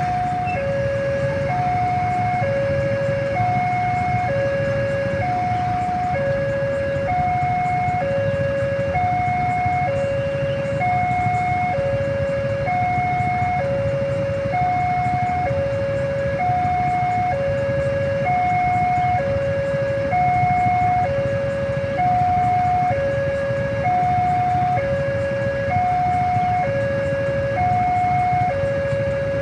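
Railway level-crossing warning alarm sounding two alternating notes, high then low, each about 0.7 s long, repeating steadily as a warning that a train is approaching. Underneath it runs the low, steady hum of waiting vehicles' engines idling.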